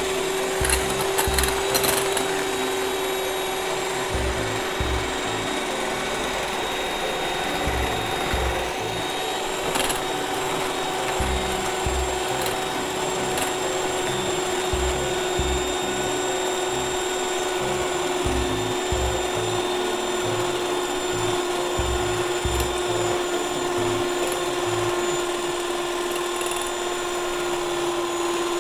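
Electric hand mixer running steadily with a constant motor whine as its twin beaters whip thick coffee paste to a fluffy foam in a glass bowl.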